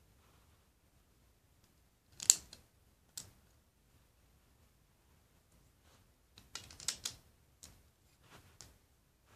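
Hard plastic clicks and clacks of LEGO bricks as a partly built model is handled and pressed together: a sharp click about two seconds in, another a second later, then a quick cluster of clicks past the middle and a few softer ones near the end.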